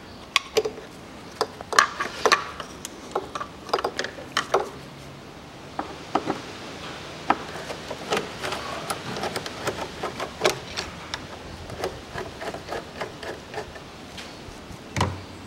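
Irregular sharp clicks, taps and short scrapes of a screwdriver working the metal hose clamp on a car's plastic engine air intake duct.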